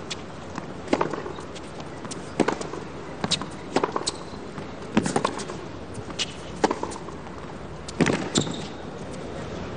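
Tennis rally: a ball struck back and forth by rackets and bouncing on a hard court, a sharp pock about every second, some coming in close pairs.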